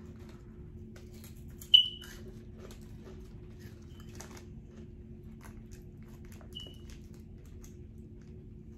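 A girl's hiccups: a sharp, squeaky "hic" about two seconds in and a fainter one a few seconds later, over faint clicks of chewing and snack-bag handling and a steady low hum.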